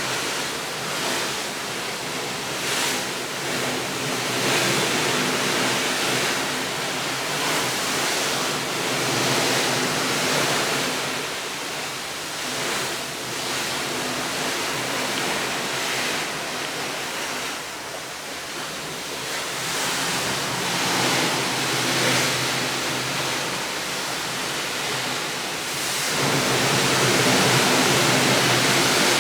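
Steady rushing noise that swells and eases every few seconds, growing louder about 26 seconds in.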